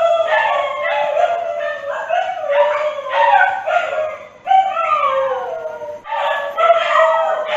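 Dogs howling: long, drawn-out, wavering cries, several overlapping at different pitches, many sliding down in pitch.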